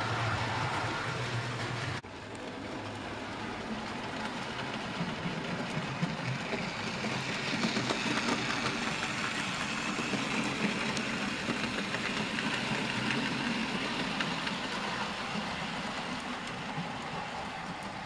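00 gauge model steam locomotive and goods wagons running along the layout's track with a steady whirr and rattle. The sound changes abruptly about two seconds in.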